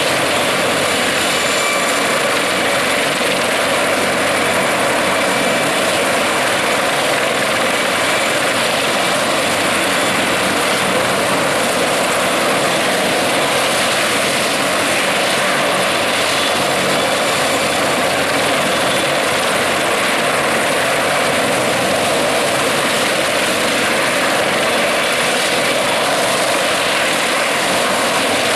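Sikorsky CH-53 heavy-lift helicopter running on the ground, its turbine engines and main and tail rotors turning at a steady loud level. A faint high turbine whine sits over the rotor noise.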